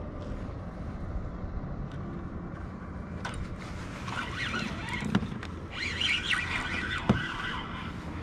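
Wind on the microphone and water against the hull of a fishing kayak, a steady low rumble. From about halfway, a busier splashing water sound joins in, with three sharp clicks.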